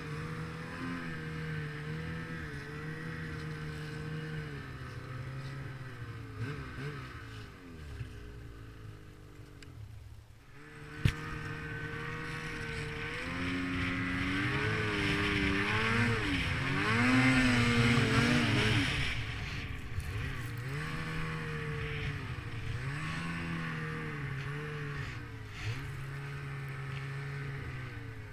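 Snowmobile engine running under a varying throttle, its pitch rising and falling. It drops away briefly about ten seconds in, and after a sharp click it comes back and revs hardest about two-thirds of the way through.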